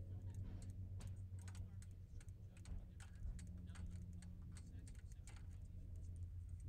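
Pliers working a cotter pin in the outer tie rod end's castle nut, straightening it to pull it out: light, irregular metallic clicks and ticks over a low steady hum.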